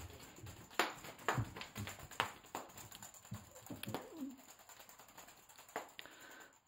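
Kitten playing with a feather wand toy on carpet tiles: a run of soft, irregular thumps and taps as it pounces and lands and the wand is flicked about.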